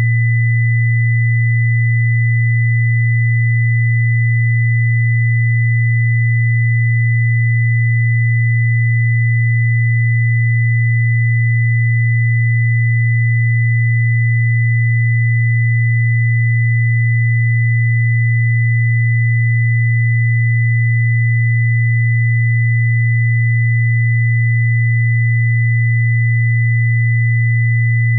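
Synthesized healing-frequency tone: a loud, steady low pure tone with a fainter high pure tone above it, both held without any change.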